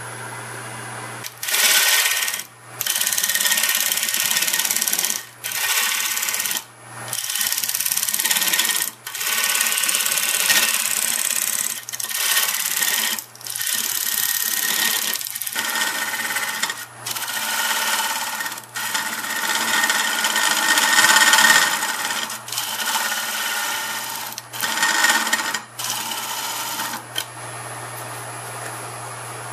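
Wood lathe running with a steady low hum while a carbide-tipped roughing tool (Easy Wood Tools Easy Rougher) cuts into spinning mesquite. The cutting comes in about a dozen passes, each a second or two of loud scraping with short pauses between, as the tool makes a wide, rough cut down the base of the piece.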